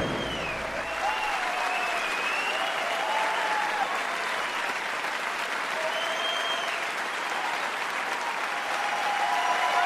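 A large crowd clapping steadily, with scattered cheers and whoops.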